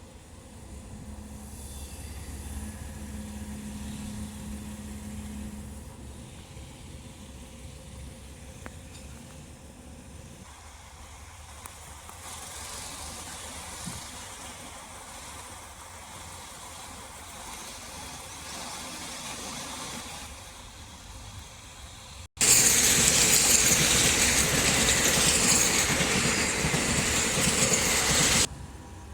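Heavy machinery's engine running steadily at a low rumble, with a faint hum in the first few seconds. About twenty-two seconds in, after an abrupt cut, a much louder rushing hiss starts suddenly, runs for about six seconds and stops just as sharply.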